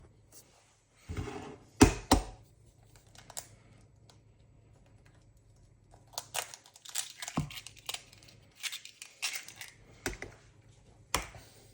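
Kitchen handling noises: a few sharp knocks and clatters, then a quiet spell, then a run of quick light clicks and rustling as ingredients and utensils are handled during food preparation.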